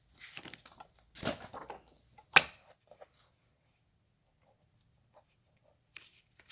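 Rustling of a bagged comic book's plastic sleeve and paper as it is slid out and opened, with one sharp snap about two and a half seconds in.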